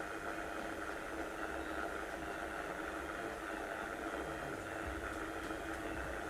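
Electric hot water bag heating up on charge: a steady low hum from the bag as its water is warmed.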